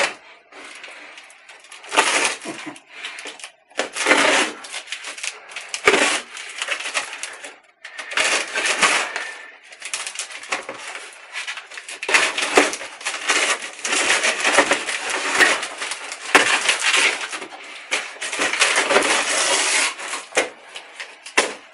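A cardboard parcel being worked open by hand: irregular scraping, ripping and rustling of cardboard, in bouts with short pauses.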